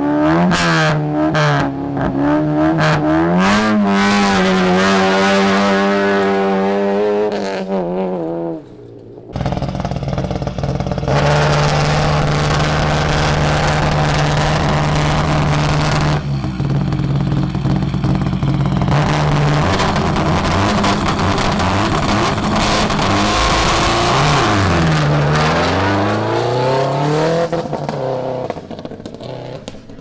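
Rally car engines revving at the exhaust, first a Proton hatchback's and, after a cut, a Subaru Impreza's flat-four held at raised revs. About three-quarters in, its pitch drops and climbs again, and the engine fades near the end as the car pulls away.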